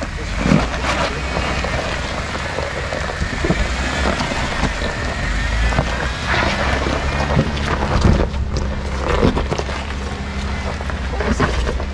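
Jeep Wrangler Unlimited crawling slowly over rocks and loose gravel: the engine runs low and steady under repeated crunching and cracking of tyres on stones.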